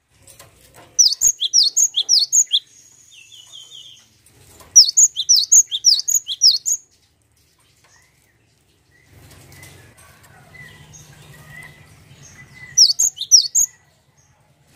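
Cinereous tit (gelatik batu) calling in three bursts of rapid, sharp, high chirps, about six notes a second, with quieter rustling between the bursts.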